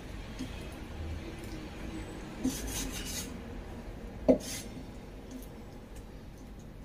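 Cleaver knocking and scraping on a wooden chopping board as pork is cut: a knock with a scrape about two and a half seconds in, and a sharper, louder knock a little after four seconds.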